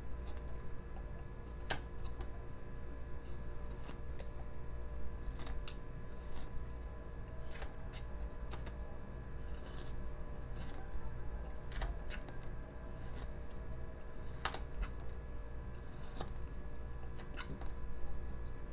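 Carving knife slicing thin chips from a basswood block by hand: a run of irregular, crisp cutting strokes.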